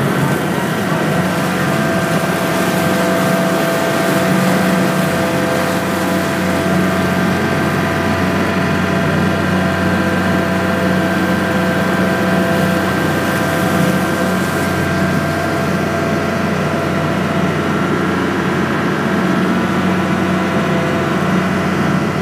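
Ferry boat's engine running steadily underway, a constant drone with water noise from the moving hull.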